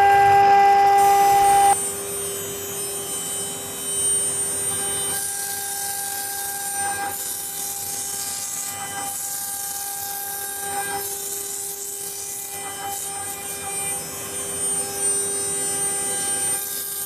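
CNC router's HSD spindle running with a steady whine while it engraves an acrylic sheet. The sound drops noticeably in level about two seconds in.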